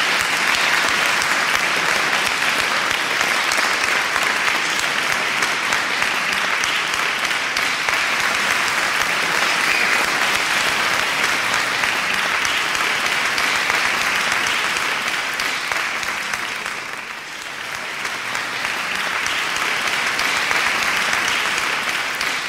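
Audience applauding: a long, steady round of clapping that dips briefly about three-quarters of the way through, then swells again.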